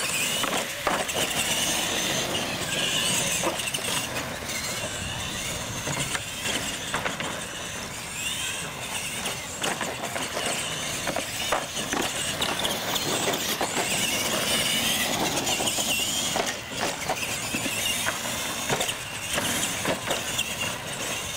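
Two radio-controlled monster trucks racing on concrete: their motors whine up and down with the throttle, over tyre noise, with sharp knocks as they run over and land off wooden ramps.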